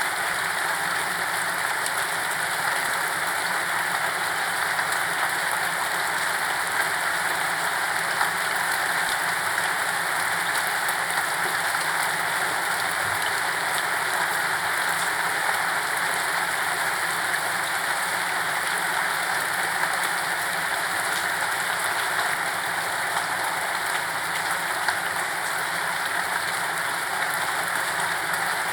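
Steady, continuous rain falling, with no thunder, a dense even hiss of many small drops.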